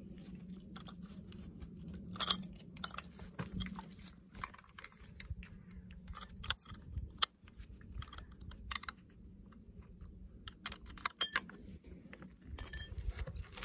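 Thin screwdriver scraping and clicking against the grimy metal around the crankshaft and oil pump drive of a Stihl MS210 chainsaw, picking at dirt. The scrapes and ticks are irregular, with the sharpest clicks about two and seven seconds in.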